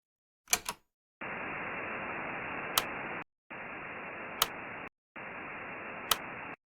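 Two sharp clicks, then three bursts of static hiss with short silent gaps between them. The first burst lasts about two seconds and the other two about a second and a half; each has a single sharp click partway through.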